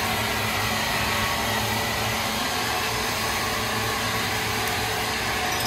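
A powered wood saw running: a loud, steady rushing drone with a low hum underneath, unchanging throughout.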